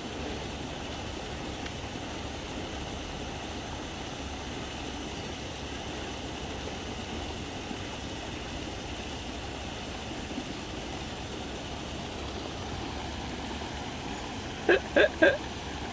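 Steady background hum and hiss, unchanging throughout. Near the end, a few short sounds from a person's voice.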